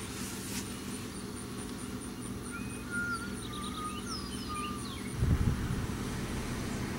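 Small birds chirping, several short rising and falling calls in the middle, over a steady low hum. About five seconds in, the hum gives way to a short low rumble.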